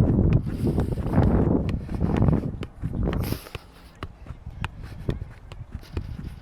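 Football kick-ups: the ball tapped up off the foot about twice a second in a steady run of short knocks. Wind gusts on the microphone as a low rumble through the first three seconds, then eases.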